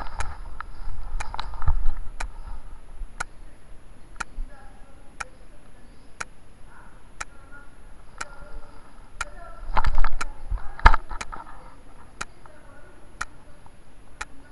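Sharp regular ticking, about one tick a second, over faint muffled voices, with a couple of louder knocks about ten seconds in.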